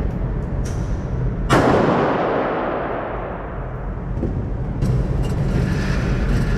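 A single loud gunshot about a second and a half in, its report ringing and dying away over about two seconds, with a few fainter sharp cracks before and after it over a steady low rumble.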